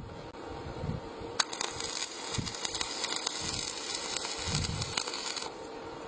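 Welding arc crackling and hissing. It strikes suddenly about a second and a half in, holds steady, and cuts off suddenly near the end.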